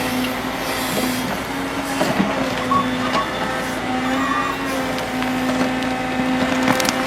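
Stump grinder running steadily under load, a constant engine and cutter hum with scattered sharp ticks and cracks of wood being chewed.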